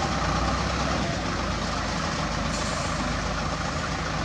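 Isuzu Giga FVZ self-loader truck's diesel engine running as the truck drives slowly past close by, its low engine note easing off about a second in.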